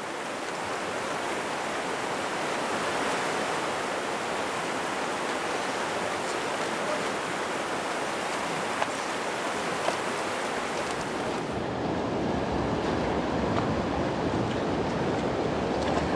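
Fast mountain river rushing steadily over rocks and riffles. About twelve seconds in the rush turns fuller and deeper.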